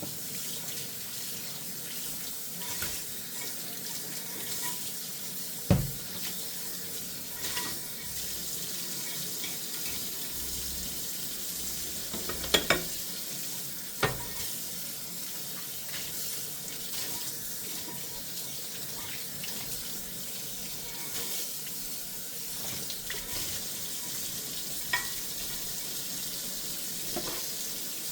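Tap water running steadily into a kitchen sink during hand dishwashing, with a few sharp knocks of dishware. The loudest knock comes about six seconds in, and a cluster follows about halfway through.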